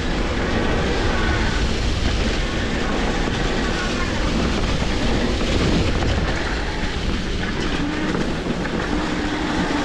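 Steady rumble and rattle of an electric mountain bike being ridden over a trail, heard from a camera mounted on the bike: tyres rolling on the ground and wind on the microphone.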